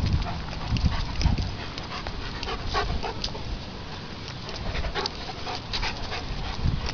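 A dog panting close by, with scattered short clicks and scuffs.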